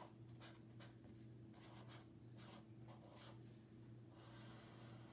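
Felt-tip marker writing on poster paper: faint scratchy strokes, a quick series of short ones and then a longer drawn stroke near the end, as a word is written out.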